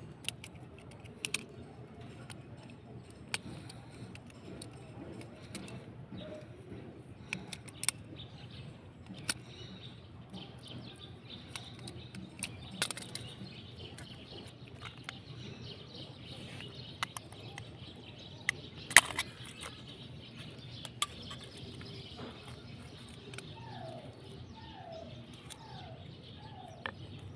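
Scattered sharp little clicks and taps from handling a doorbell push-button switch while ants are cleaned out of it, over a faint steady hum. Near the end a bird gives four short falling calls.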